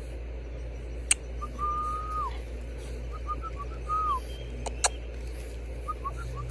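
French bulldog puppies whining: three high, drawn-out whines, each held level and then dropping off, the later two led by short squeaky peeps. A few sharp clicks or knocks come in between.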